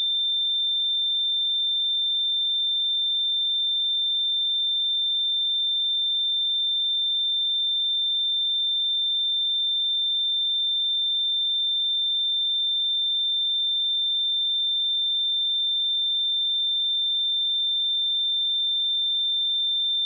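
Pure sine-wave test tone at 3577 Hz, a single high steady pitch with no change in level.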